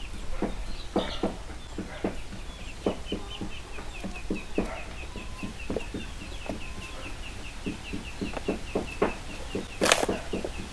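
Chickens clucking in short irregular calls, over a fast, even series of high chirps at about four or five a second. A brief loud noise comes near the end.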